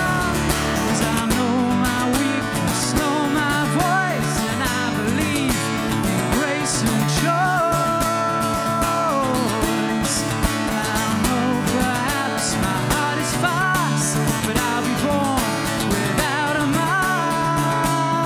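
A song on acoustic guitar, strummed steadily, with a man's voice singing a long, wordless-sounding melody over it.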